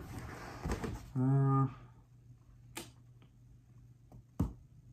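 A few light, sharp clicks spaced out over several seconds in a quiet small room, with a man's short held "uhh" about a second in.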